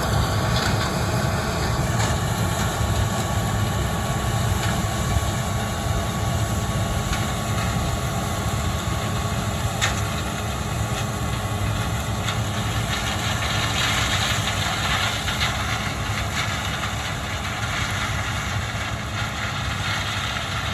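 Farm tractor's diesel engine running steadily at a constant speed, an even low drone.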